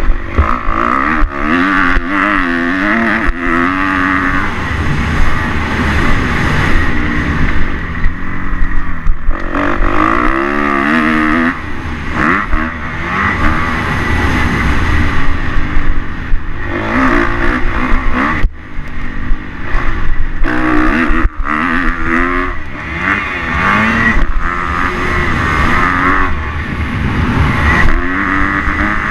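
Kawasaki KX 250 motocross bike's engine heard from an onboard camera, its revs climbing and dropping over and over as the rider throttles through the track. Wind rumbles on the microphone, with a few sharp knocks.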